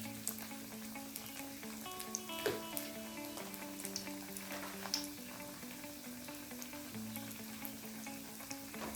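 Hot oil sizzling steadily as food fries, with scattered small crackles, over background music with a slow melody.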